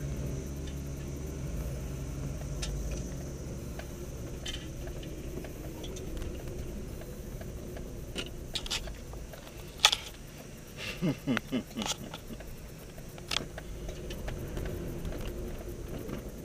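Car engine running low and steady at crawling speed on a rough track, heard from inside the cabin, with scattered clicks and rattles from the car jolting over bumps. About halfway through, a few short rising engine revs.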